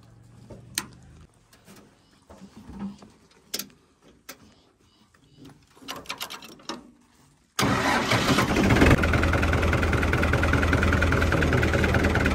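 Scattered light clicks and knocks of the laser-level control box and its cable plugs being handled. About seven seconds in, the tractor's diesel engine starts up suddenly and runs steadily and loudly.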